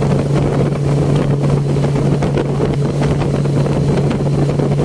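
Suzuki 40 hp outboard motor running steadily at speed, a constant drone with a steady hum, over the rush and spray of water in the boat's wake and wind buffeting the microphone.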